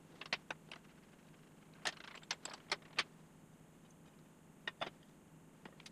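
Sparse light clicks and metal taps from hold-down clamps, a hex key and aluminum plates being handled and set down on a perforated steel table, in small clusters with quiet between.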